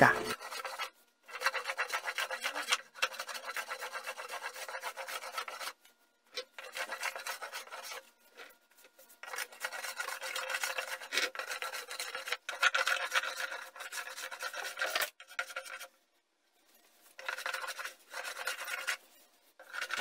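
Hand plane shaving the wooden workbench top in repeated push strokes, each a rasping swish about a second or two long, with short pauses between strokes.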